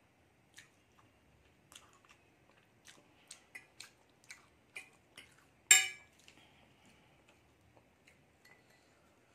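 Metal fork tapping and scraping on a glass plate while twirling noodles: a string of light clicks, with one loud ringing clink a little past halfway. Soft chewing runs underneath.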